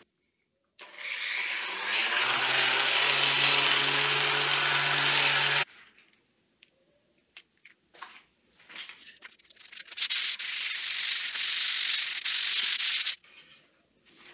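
Power sander fitted with a P180 mesh abrasive disc, sanding a glued-up mahogany board. It spins up with a steady motor hum under the grinding hiss, runs for about five seconds and cuts off sharply. After a few light knocks there is a second stretch of sanding about three seconds long.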